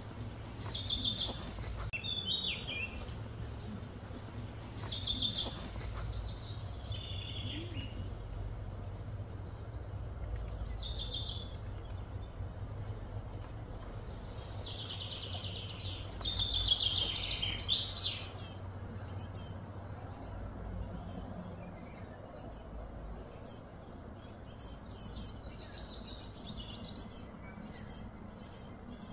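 Birds chirping and calling: repeated short high chirps and quick falling notes, busiest in the first two-thirds and thinning into rapid faint ticks near the end, over a steady low hum.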